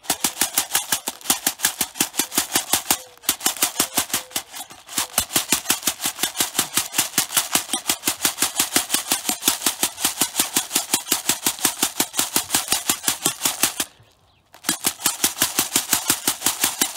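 Plastic bottles filled with a granular solid, shaken hard by hand on a brick: rapid, even rattling and knocking at about seven strokes a second, shaking the particles down to equilibrium. The shaking pauses briefly about three seconds in and again for half a second near the end.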